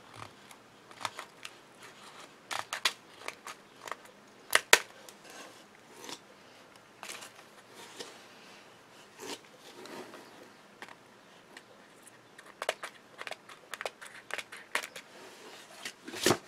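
Small scissors snipping clear acetate sheet, a scattered series of short sharp snips and clicks, with paper card being handled; a louder knock comes just before the end.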